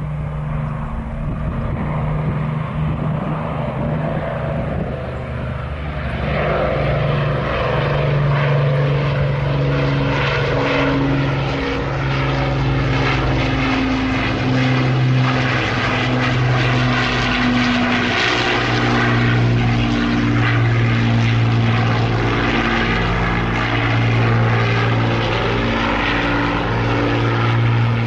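Avro Lancaster bomber's four Rolls-Royce Merlin piston engines running in flight overhead, a steady multi-engine note that grows louder about six seconds in as the aircraft comes closer.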